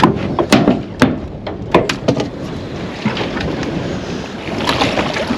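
A quick run of sharp knocks and thumps in the boat while a freshly landed salmon is handled, over a steady background of boat engine and wind noise. The knocks fall in the first two seconds or so.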